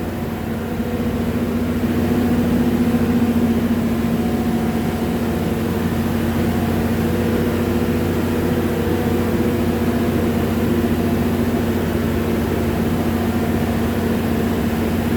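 Skid steer loader's engine running steadily as it is manoeuvred slowly.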